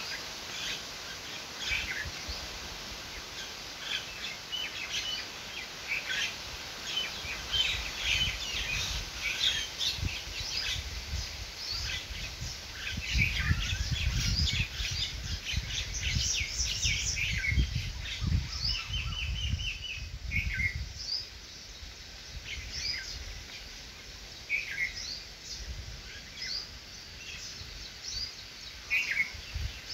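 Small birds chirping and calling again and again, with one fast repeated trill, over an outdoor background. A low rumble runs under the middle part.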